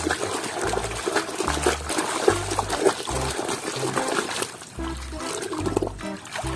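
Water running and splashing as a mud-covered toy truck is washed clean.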